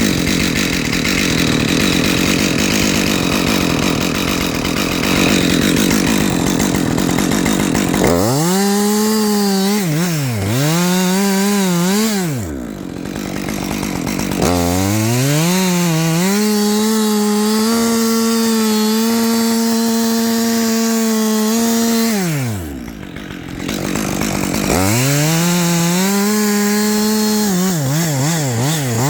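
Husqvarna 550 XP two-stroke chainsaw cutting into wood with a rough, dense sound for the first several seconds. It is then revved in rising and falling bursts, held at a high steady pitch for several seconds and dropped back twice, before more throttle blips near the end.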